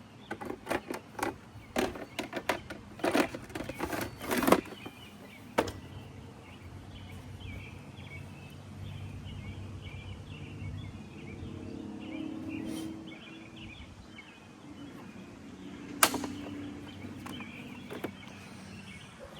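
A quick run of sharp knocks and cracks in the first six seconds, then small birds chirping over quiet outdoor background, with one more sharp crack later on.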